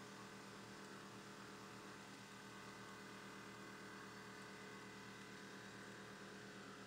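Faint, steady hum of a metal lathe running while an 11/16 drill in the tailstock chuck bores the nut blank.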